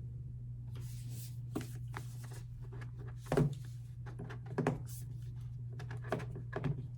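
Paper and cardboard album contents being handled: scattered rustles, slides and soft knocks, with a louder knock about three seconds in, over a steady low hum.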